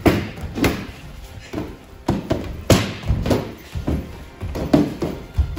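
Rapid full-power karate kicks and punches landing on a padded kick shield: a string of heavy thuds, a hard strike about every half second with lighter hits between, under background music.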